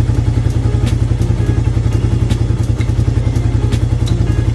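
Suzuki Raider 150 motorcycle's single-cylinder engine idling steadily, with a rapid even pulse.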